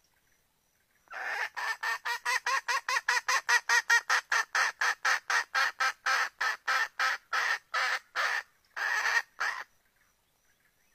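Junglefowl hen calling: a fast, even run of short, sharp notes, about four a second, then after a brief pause two longer notes. It is a hen's call that draws a male junglefowl in to mate.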